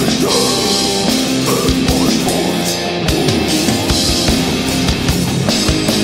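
Extreme black/doom metal song: distorted electric guitars holding sustained chords over a drum kit, with kick drum hits scattered through.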